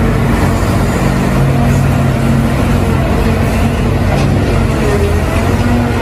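Large excavator's engine running steadily, a loud, deep drone that stays at an even level throughout.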